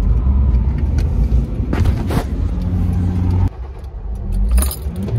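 Car engine running, heard from inside the cabin as a loud, steady low rumble that drops off suddenly about three and a half seconds in, followed by a couple of clicks.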